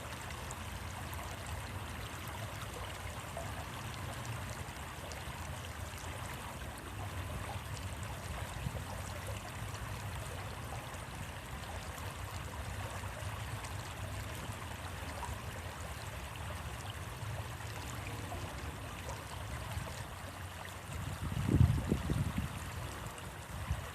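Stream water flowing with a steady rushing and trickling, and a brief low rumble about three-quarters of the way in.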